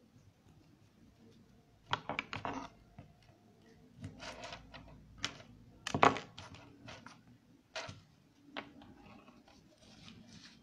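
Hands handling small parts and wires on a wooden desk: a series of irregular clicks and light knocks, the loudest knock about six seconds in.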